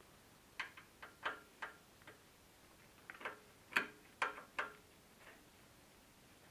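Light metallic clicks and clinks, about a dozen at irregular spacing, each with a short ring, as an Allen key works small cap screws out of a plastic body panel.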